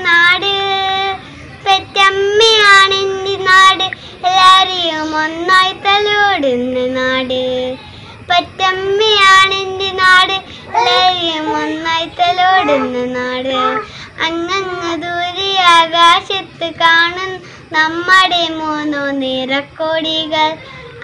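A young girl singing a song solo, unaccompanied, in phrases with short pauses for breath between them.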